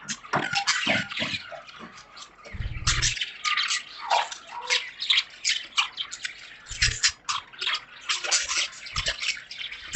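Budgies chattering in a rapid run of short chirps, with a few dull thumps.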